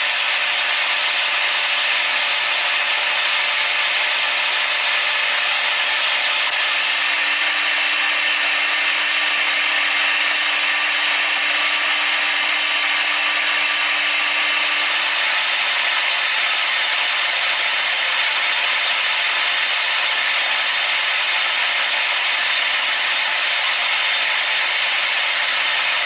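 CNC machine tool running, giving a steady, even mechanical noise with no break.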